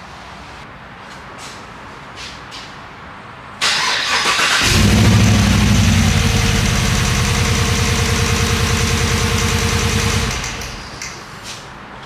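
A 2015 Chevrolet Silverado's 5.3L V8 engine turning over for about six seconds, starting abruptly about four seconds in with an even, steady rhythm and winding down near the ten-second mark. It runs with cylinder one showing only about 6 psi of compression, nearly none.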